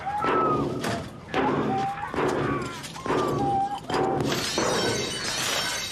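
Cars being smashed with a bar: repeated blows about once a second, with breaking glass, and shouting voices between the blows.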